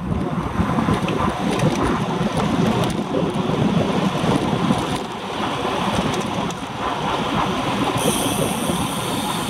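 Wind rushing over a handlebar-mounted action camera's microphone on a road bike moving at race speed in a pack, a steady loud rush.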